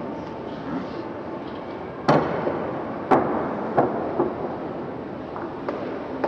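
Pool shot: a sharp crack of the cue on the cue ball about two seconds in, followed by several more clacks over the next two seconds as the balls strike each other and the cushions, over a steady background hum.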